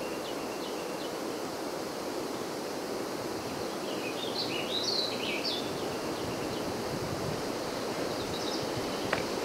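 Outdoor forest ambience: a steady, even rush of background noise, with a few short high bird chirps just after the start and a cluster of them around the middle.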